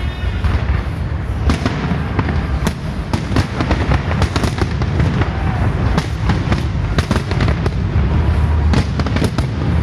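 Large fireworks display: a rapid, irregular run of sharp bangs and crackles over a continuous low rumble of booms.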